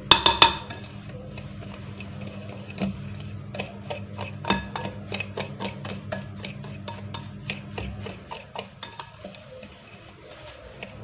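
Wire whisk stirring a crumbly semolina mixture in a glass bowl, the wires clicking and scraping against the glass in quick repeated ticks, loudest at the very start. A steady low hum runs underneath.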